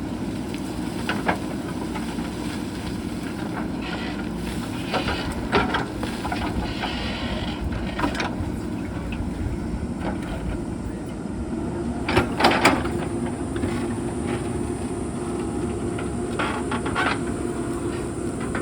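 JCB backhoe loader's diesel engine running steadily while it digs out stones, with scattered knocks and clanks of rock and steel. The loudest knocks come in a quick cluster about twelve seconds in, with a few more near the end.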